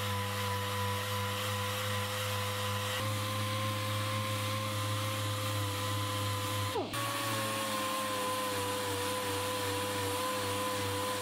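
Random-orbital (DA) sander running steadily against the steel firewall, sanding down hardened body filler, with a steady whine. Its pitch dips sharply for an instant about seven seconds in, then picks up again and settles.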